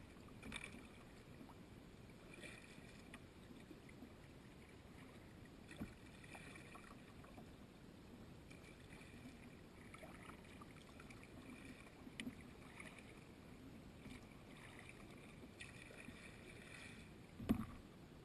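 Faint kayak paddling: paddle blades dipping and dripping water in a loose rhythm, with a few light ticks and one louder knock against the hull near the end.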